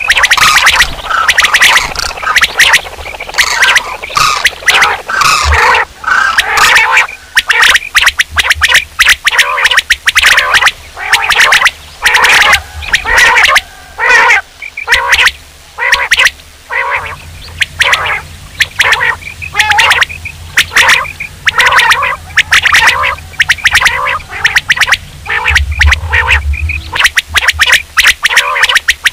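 Common quail calling over and over, in quick groups of short, clipped notes.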